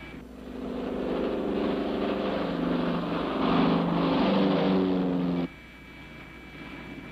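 Twin-engine propeller airplane in flight: its piston engines drone steadily, with several slightly wavering engine tones, heard on an old TV soundtrack. The drone cuts off abruptly about five and a half seconds in, leaving a faint low hum.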